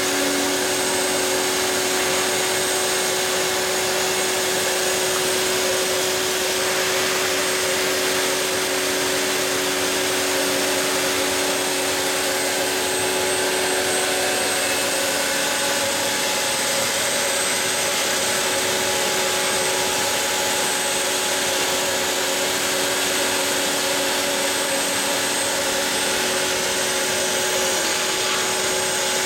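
Router spindle on a mostly 3D-printed CNC machine running steadily as its bit cuts a profile groove in MDF, with a vacuum nozzle drawing air beside the cut: a constant whine over a rushing hiss.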